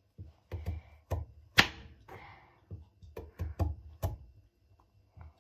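Kitchen knife chopping carrots into rounds, the blade knocking through onto the cutting board: about a dozen irregular knocks, the loudest about a second and a half in, thinning out after about four seconds.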